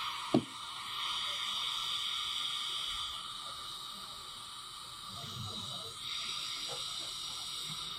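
A steady hiss, with a single sharp click about half a second in.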